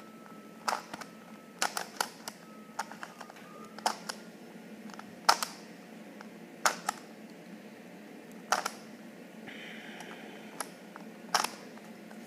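Plastic puzzle cube being turned by hand during a solve: about a dozen sharp, irregular clicks and clacks as its layers snap round, some in quick pairs.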